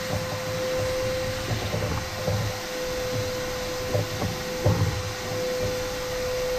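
Shop vacuum running with its hose sucking up sawdust and chips from a CNC router bed, a steady whoosh with a constant hum, and a few low bumps as the hose and board are moved.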